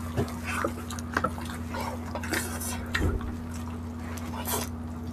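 Close-up wet chewing and mouth sounds of people eating sauce-coated grilled chicken barbecue: scattered small squelches, smacks and clicks, over a faint steady hum.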